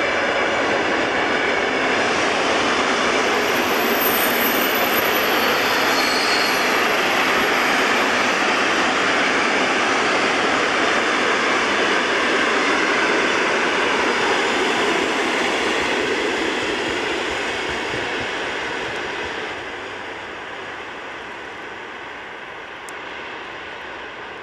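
Passenger coaches rolling past on the rails with a steady, loud rush of wheel-on-rail noise. The noise fades over the last few seconds as the train moves away.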